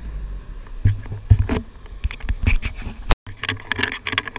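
A vehicle driving slowly on beach sand, heard from inside the cab: low engine and tyre rumble with irregular knocks and rattles as it bumps along. It breaks off abruptly about three seconds in, and surf washing on the shore follows, with crackling noise.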